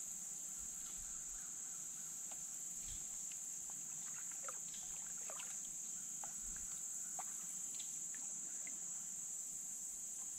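Steady high-pitched insect chorus, with a few faint short chirps and ticks scattered through it.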